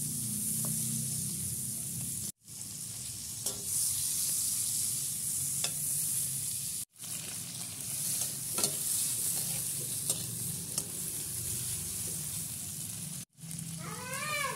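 Garlic, chili and shrimp sizzling in hot oil in a wok, a steady hiss with the spatula now and then clicking and scraping against the pan as it stirs. The sound drops out briefly three times.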